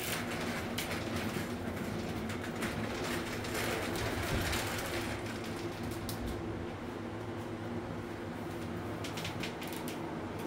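Steady mechanical hum inside a shop, made of several low tones at once, with light clicks and rustles scattered through the first few seconds and a short cluster near the end.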